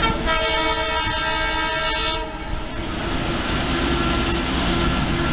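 Air horn of an Indian Railways WDM-3D diesel locomotive sounding one long chord blast of about two seconds, then a steady low rumble.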